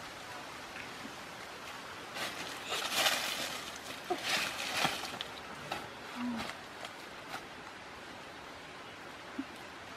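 Dry banana leaves rustling in a few bursts about two to five seconds in, over a steady outdoor hiss, with a few faint clicks after.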